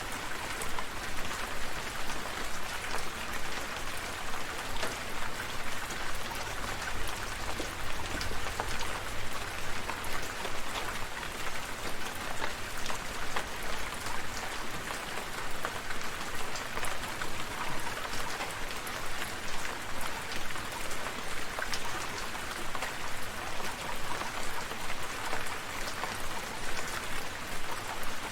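Steady rain falling, with many individual drops pattering on surfaces close by.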